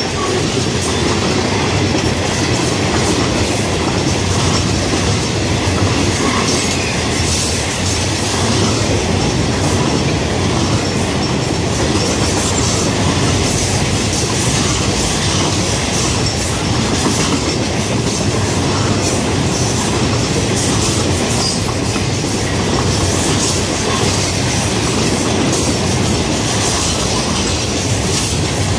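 Florida East Coast freight train's hopper cars rolling past close by: a steady rumble of steel wheels on rail with clickety-clack over the rail joints and faint wheel squeal.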